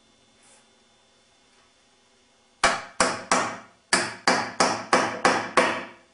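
Hammer blows, nine in all starting a couple of seconds in: three, a short pause, then six more at an even pace of about three a second, each a sharp crack with a short ring.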